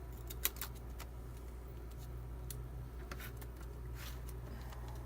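Scattered light clicks and taps from tablet parts being handled during reassembly, over a steady low hum.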